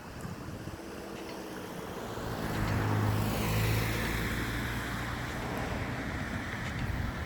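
Nelson P200 big gun sprinkler running on its traveler: the rush of its water stream, with a few sharp clicks of the drive arm. A low engine hum builds about two and a half seconds in and stays.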